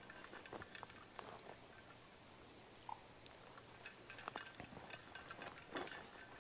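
Faint footsteps of people walking a hiking trail: irregular steps, with a sparser stretch in the middle.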